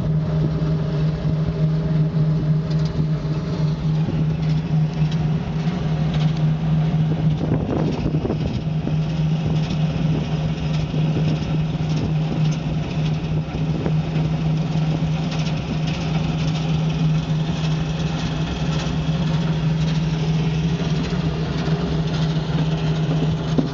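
Diesel engine of farm machinery running steadily, a constant low drone that holds at one pitch throughout.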